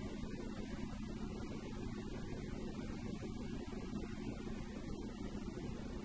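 Steady drone of a car driving at a constant speed, heard from inside: a low engine hum and road noise that hold unchanged.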